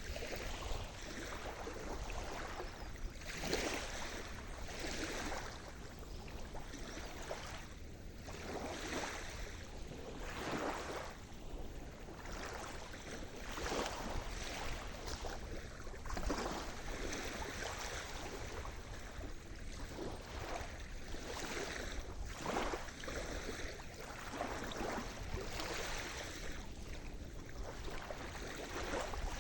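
Sea surf: small waves washing in one after another, each a short swish every second or two, over a steady low rumble of the sea.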